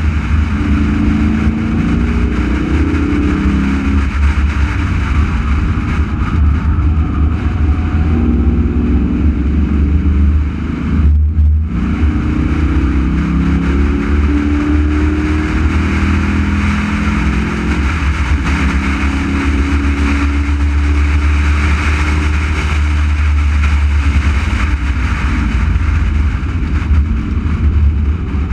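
Race car engine at speed, heard from an onboard camera on the car, its note rising and falling through the corners over a heavy low rumble. The sound dips briefly about eleven seconds in.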